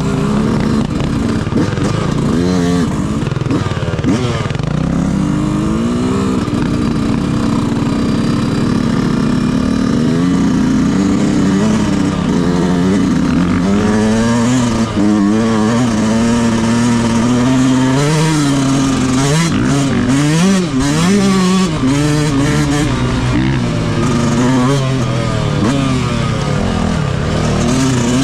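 Yamaha YZ125 two-stroke motocross engine being ridden hard, its pitch rising and falling again and again as the throttle opens and closes.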